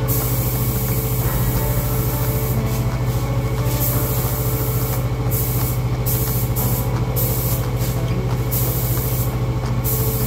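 Sata 1500 paint spray gun hissing as it sprays single-stage urethane paint, cutting out briefly several times between passes, over a steady low hum.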